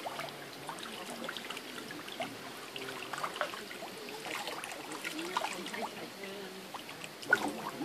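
A shoal of fish splashing and snapping at the water surface as they feed on bread: a continuous patter of many small splashes, with one louder sharp click near the end.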